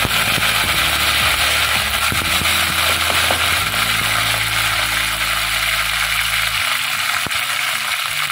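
Curry leaves and whole spices sizzling and spluttering in hot oil in a kadai, a dense steady frying hiss: the tempering stage of the dish.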